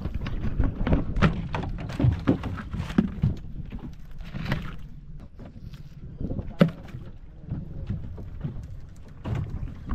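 Freshly caught fish knocking and thudding in a plastic basket on a boat deck: a run of short taps and knocks, the sharpest about two-thirds of the way through, over a steady low rumble.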